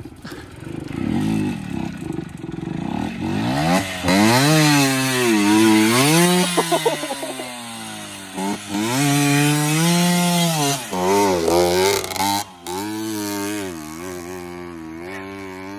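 Small dirt bike engine revving, its pitch rising and falling several times as the throttle is worked, with a brief break about twelve and a half seconds in.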